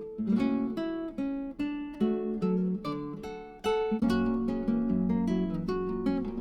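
Background music of acoustic guitar, plucked notes and chords ringing and fading one after another.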